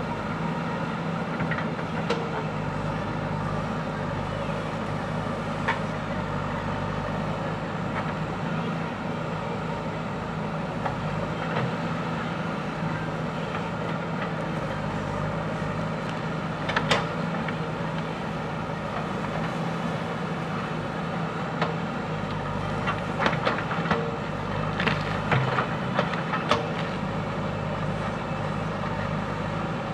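JCB 3DX backhoe loader's diesel engine running steadily, with scattered sharp knocks and clanks from the working machine, one a little past the middle and several close together later on.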